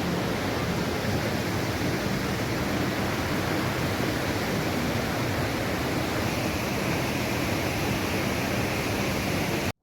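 Waterfall rushing in a steady, even roar of water, cutting off abruptly just before the end.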